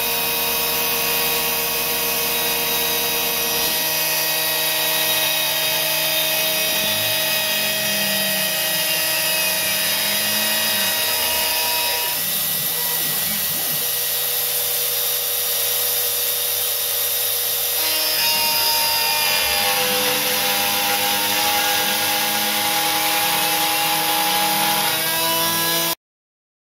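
CNC gantry milling machine's spindle running with an end mill cutting aluminium: a steady whine of several held tones, with other tones gliding up and down. The sound changes abruptly a few times and cuts off suddenly near the end.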